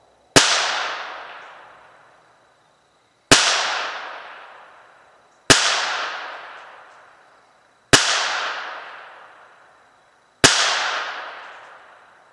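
Ruger Mark III .22 LR pistol fired five times in slow, aimed fire, a shot every two to three seconds, each sharp crack trailing off for a second or two.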